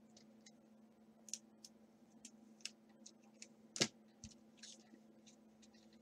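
Trading cards being handled and flipped through: faint, scattered light clicks and flicks of card edges, with one sharper tap a little before four seconds in, over a faint steady hum.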